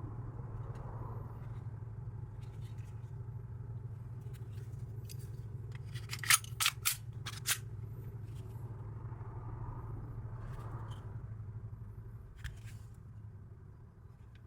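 Sharp mechanical clicks from handling the VFC Glock 45 Gen5 airsoft pistol: four loud clicks in quick succession about six seconds in, with scattered lighter clicks, over a steady low hum.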